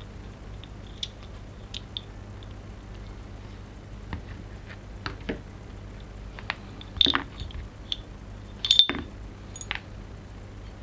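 Light clicks and taps as a KJW KC-02 airsoft trigger mechanism housing and its small parts are handled. The louder clacks come in clusters about seven and nine seconds in.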